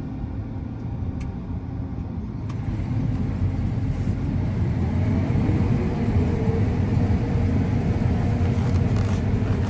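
Combine harvester running, heard from inside the cab: a steady low rumble that gets louder about three seconds in.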